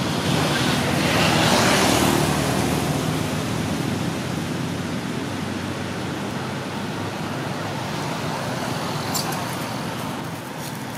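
Steady road traffic noise, swelling as a vehicle passes in the first couple of seconds and then easing to a constant hum, with a brief click near the end.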